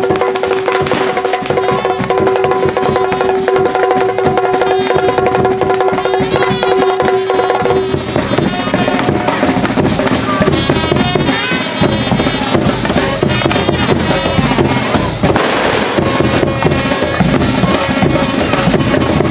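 Traditional temple ritual music: fast, dense drumming throughout. A steady held note sounds over it for the first eight seconds or so, then stops, and a wavering higher melody follows.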